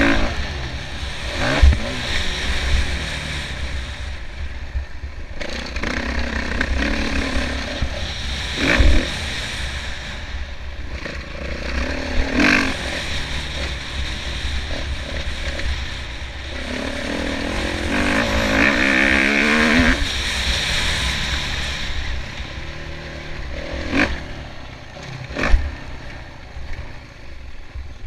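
Kawasaki KX450F single-cylinder four-stroke motocross engine revving up and down hard as the bike is ridden around a dirt track, heard from a helmet-mounted camera. Several sharp knocks cut through the engine noise at intervals.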